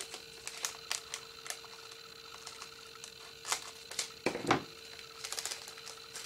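Small clicks and taps of plastic drill bags and containers being handled on a tabletop, with a louder knock about four and a half seconds in and a quick run of clicks just after, over a faint steady hum.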